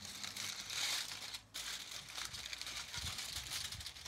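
Crinkling and crumpling of a sheet of wrapping as it is pressed over a dish of grilled meat, with a brief pause about one and a half seconds in.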